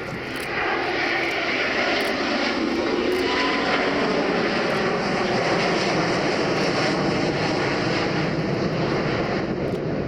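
Jet noise from an Airbus A350 XWB's two Rolls-Royce Trent XWB turbofan engines as the airliner flies past low. The noise swells about a second in and then holds steady.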